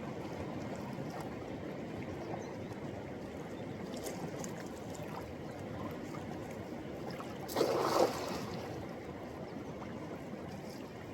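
Steady rush of water moving around a boat, with a brief louder surge about seven and a half seconds in.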